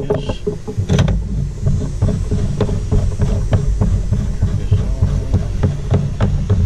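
Irregular light clicks and knocks of PVC pipe fittings being handled during a dry test fit, over a loud, uneven low rumble.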